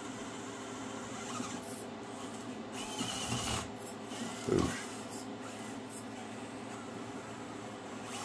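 Micro RC crawler's small electric motor and geared drivetrain whining steadily as it crawls over the course, with a short louder knock about four and a half seconds in.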